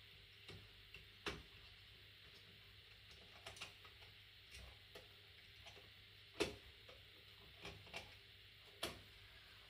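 Faint, irregular small clicks and taps of an HO scale model caboose and its plastic knuckle couplers being handled on the track, the couplers not matching in height. The loudest click comes about six and a half seconds in.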